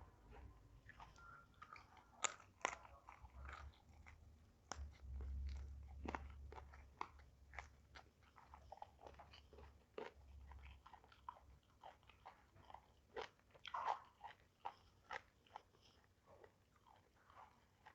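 A person chewing and crunching food close to the microphone, with many short crisp crunches and wet chewing clicks. A low rumble sits underneath from about five to eleven seconds in.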